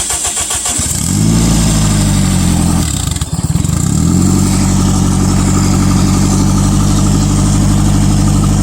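Turbocharged Toyota 1NZ-FE four-cylinder engine in a Lada cranking on the starter and catching about a second in, stumbling briefly near three seconds in, then picking up again and settling into a steady idle.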